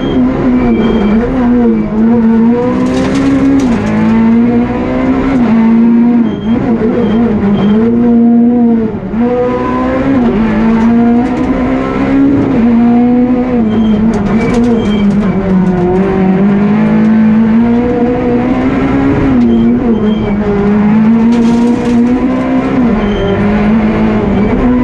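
Peugeot 208 R2 rally car's 1.6-litre four-cylinder engine running hard, heard from inside the cabin, its revs climbing and falling over and over with gear changes and lifts for corners.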